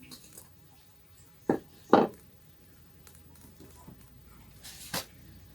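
Two sharp knocks about half a second apart, then a short rustle ending in a click near the end, as a cup of garlic in hot water and its cover are handled.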